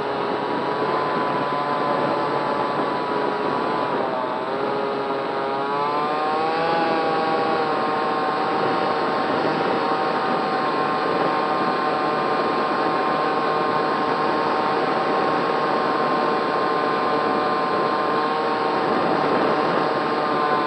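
Racerstar BR2208 2600KV brushless motor and propeller on a SkySurfer RC plane in flight, a steady whine over rushing air. Its pitch dips about four seconds in, climbs back about two seconds later, then holds steady.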